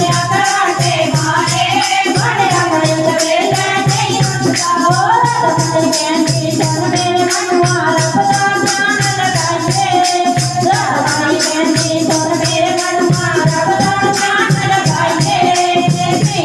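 Devotional bhajan music: a gliding melody over a steady drum beat, with a fast, even rattling percussion shaken in time.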